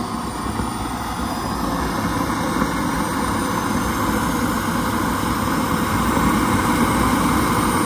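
JetCat P180 model jet turbine running, a steady rushing sound with a faint high whine, growing gradually louder.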